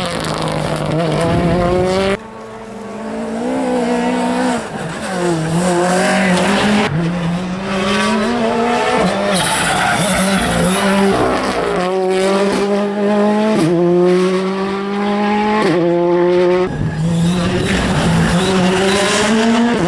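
Rally cars' engines at full throttle, Ford Fiesta R5s among them, the engine pitch climbing and then dropping sharply at each gear change, with abrupt jumps from one car to the next.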